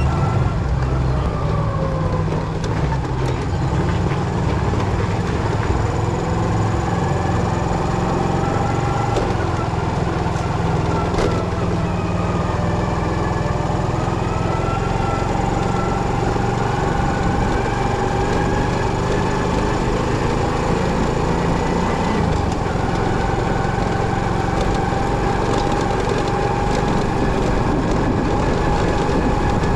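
Motorcycle running steadily: a low engine rumble with a whine whose pitch slowly rises and falls.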